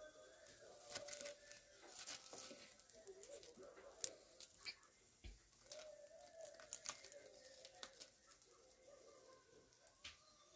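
Faint crackling of a crisp, flaky deep-fried pastry crust as fingers tear a vegetable cheese puff apart, in scattered small crackles.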